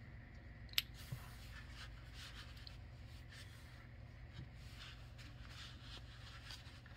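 A folding pocket knife clicks sharply about a second in, then its blade saws through a cotton yarn tail with faint, repeated scratching.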